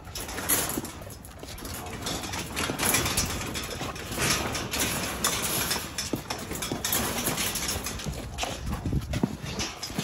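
Several American bully puppies jumping and scrambling on concrete, their claws and paws scuffling and clicking, along with rubber-boot footsteps, in irregular knocks and scrapes.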